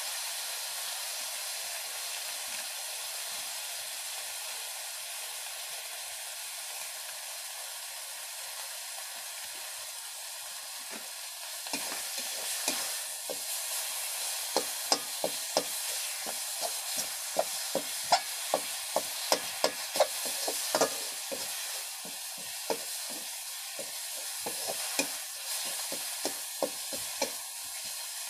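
Food sizzling in a wok, with a metal spatula scraping and knocking against the pan in quick, uneven strokes, about two a second, from near the middle on.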